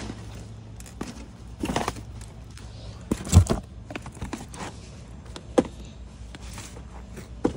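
Cardboard puzzle boxes being handled and shifted on a cardboard display shelf: scattered knocks and scuffs, the loudest about three seconds in, over a low steady hum.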